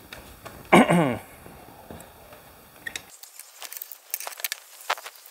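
Caulk gun dispensing construction adhesive in zigzag beads: a short, loud pitched sound falling in pitch about a second in, then a run of light, quick clicks from the gun's trigger and plunger over the last two seconds.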